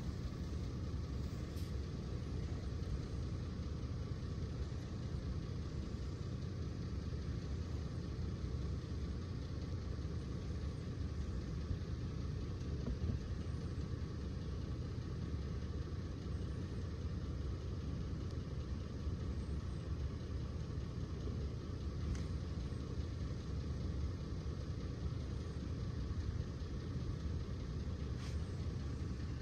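Steady low rumble of an idling vehicle engine, even in level throughout.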